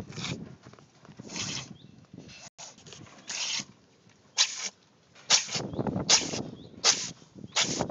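Domestic cat sneezing over and over: about eight short, sharp sneezes, coming faster and more regularly in the second half, with a low rumble underneath.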